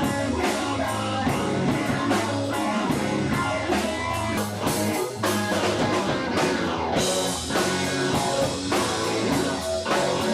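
Rock music with electric guitar and drums keeping a steady beat.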